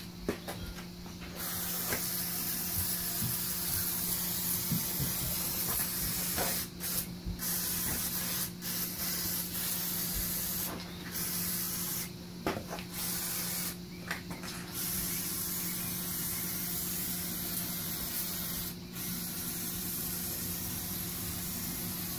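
WD-40 aerosol can spraying oil onto bare cast-iron cylinder bores to keep off rust. The long hissing spray starts about a second and a half in and breaks off briefly several times.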